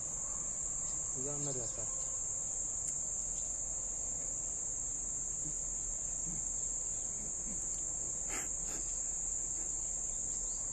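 Insects trilling steadily at a high pitch, with a short knock about eight seconds in.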